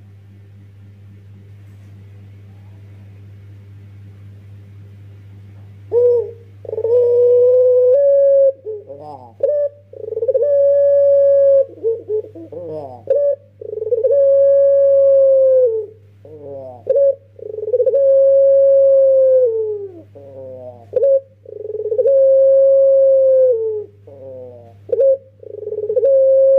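A young ringneck dove (puter) giving its long drawn-out 'pelung' coo. For about the first six seconds there is only a low hum. Then comes a run of long coos, each held level and dropping at the end, roughly every four seconds, with short stuttering notes between them.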